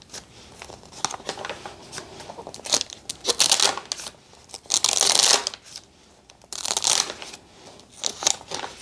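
Paper pages of a thick traveler's notebook insert being turned by hand: a run of irregular swishes and rustles, the loudest about five seconds in.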